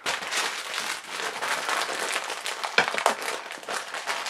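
Clear plastic packaging bag crinkling and rustling as it is handled and opened around a folded blanket, with a sharper crackle about three seconds in.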